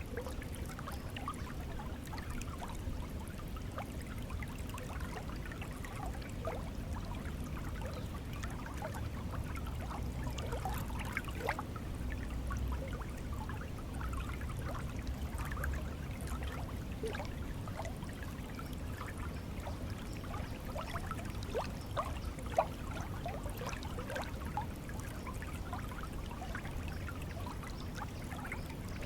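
Stream of water flowing steadily, with a low rush and many small bubbling, trickling splashes.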